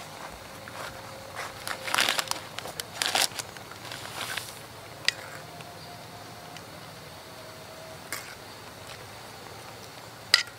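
Scattered clicks, knocks and short rustles of something being handled, bunched together about two to three seconds in and then single sharp clicks, over a steady background hiss.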